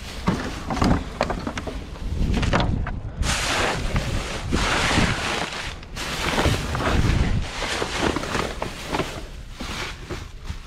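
Plastic trash bags rustling and crinkling as gloved hands dig through and shift the bagged waste in a dumpster, with scattered knocks and clicks from items being moved.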